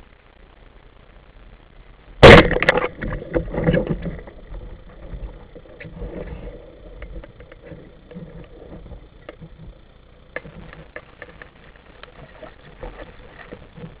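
A sharp underwater bang about two seconds in, followed by a couple of seconds of rattling and knocking, then a low murmur of water with scattered faint clicks.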